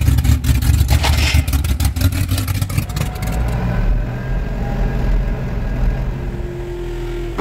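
A Ford Capri's engine revving unevenly, with many sharp cracks and clatters for about three and a half seconds. It then gives way to the steadier, lower hum of a farm loader's engine heard from its cab.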